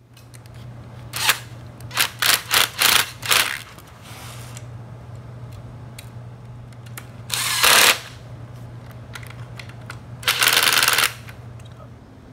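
Handling noise from work on a mesh hunting seat's frame and support bar: a quick run of short scraping noises, then two longer ones, over a steady low hum.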